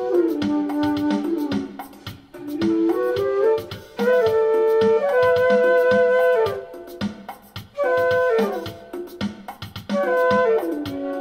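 Flute melody of held notes and quick falling runs, played through a Zoom 505-II effects pedal with harmonizer and reverb, over a steady beat.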